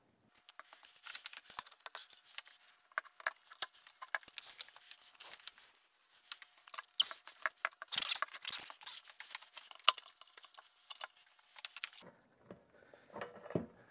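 TOTO Neorest RH porcelain toilet bowl being worked down onto its floor mounting: many small irregular clicks, taps and scrapes of porcelain against the mounting bolts and seal as it is shifted and rocked, until it slides into place and the clicking stops near the end.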